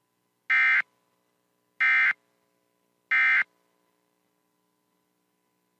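Emergency Alert System end-of-message signal: three short bursts of SAME digital data tones, each about a third of a second long and about a second and a third apart, marking the end of the alert.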